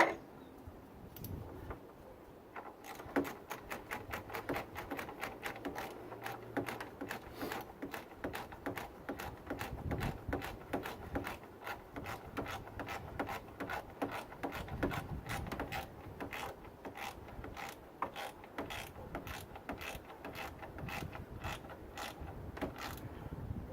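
Socket ratchet with an extension turning a bolt on the timing cover, its pawl clicking in quick runs of several clicks a second from about three seconds in.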